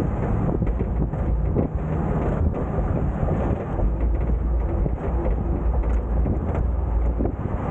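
Tow truck driving with a car in tow: a steady low rumble of road and wind noise at the rear of the truck, with a few faint rattles.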